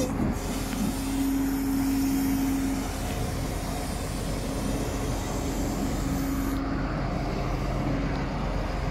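Case 721F wheel loader's turbocharged 6.7-litre six-cylinder diesel engine running steadily as the loader drives and turns.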